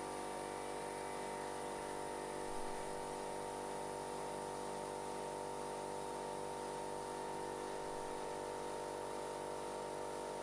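Blue Hyundai twin-motor V-twin air compressor running steadily after switch-on, pumping up its tank: a noisy motor-and-pump drone with a low throb pulsing about twice a second.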